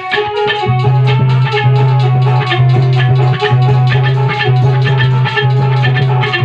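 Loud dance music played through a DJ sound system, with a heavy bass line and fast, even percussion strokes.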